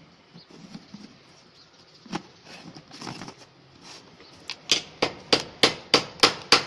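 Plastic RO pre-filter housing lid being screwed onto its bowl by hand. A few scattered clicks and rustles come first, then from about four and a half seconds in a run of sharp, regular clicks, about three a second, as the lid is tightened.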